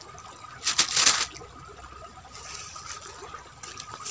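Small river's water trickling softly, with a brief louder rush of noise about a second in and a faint steady tone underneath.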